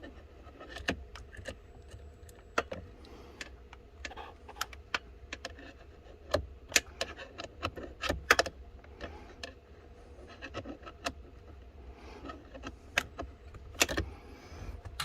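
Small 8mm ratcheting gear wrench clicking at irregular intervals as it works the actuator's bolts, with a steady low hum underneath.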